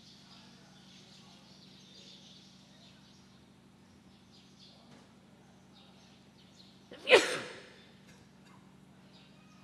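A man sneezes once, loudly, about seven seconds in: a sharp onset that dies away within a second. Before it there are only faint small rustles over a steady low hum.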